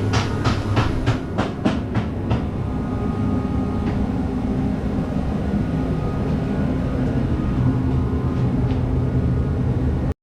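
Steady mechanical drone with a regular clatter of clicks, about three to four a second, over the first two seconds or so. It cuts off suddenly just before the end.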